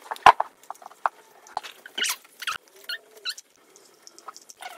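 Rustling and light tapping of paper and card craft pieces being handled on a table, with one sharp knock about a quarter-second in.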